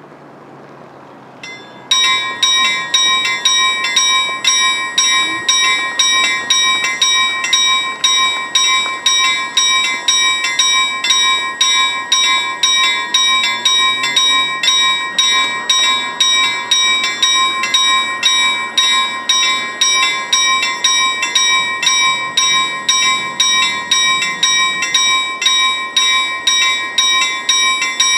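Railway level-crossing warning bell that starts abruptly about two seconds in and keeps ringing with rapid, evenly repeated strikes of a bright, high ringing tone.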